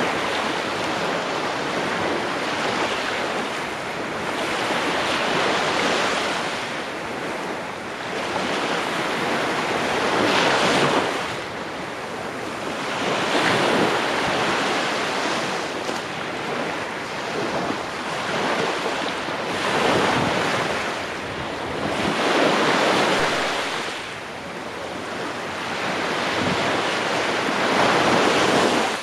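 Small waves breaking and washing up a sandy beach, the surf noise swelling and fading every few seconds as each wave comes in and drains back.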